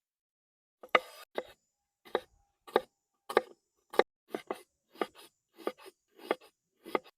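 A series of about a dozen sharp knocks at a steady pace, roughly one every half second to second, some struck in quick pairs.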